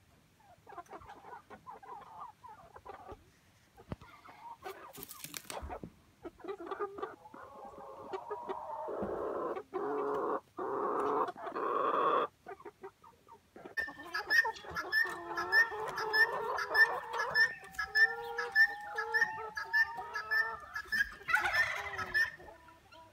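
A flock of brown laying hens clucking, soft and scattered at first, then louder and busier from about halfway through, with many short repeated calls.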